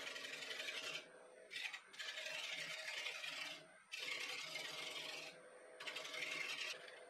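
Bowl gouge cutting a spinning wooden bowl on a wood lathe: a high hiss of the cut that comes in several strokes broken by short pauses, over the steady hum of the lathe.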